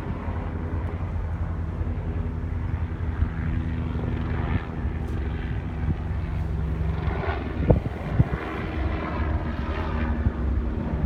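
A large engine running steadily, with swells of noise and two sharp knocks about three-quarters of the way through.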